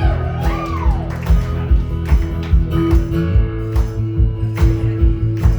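Live band playing a song's intro: strummed acoustic guitar over bass and a steady beat.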